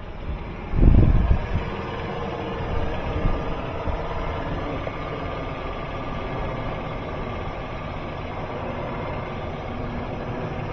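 Car engine idling steadily. About a second in there is a heavy low thump.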